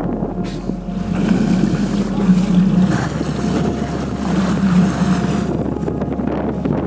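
Motorboat engine running with a steady low hum that swells and eases a couple of times, under wind rushing on the microphone.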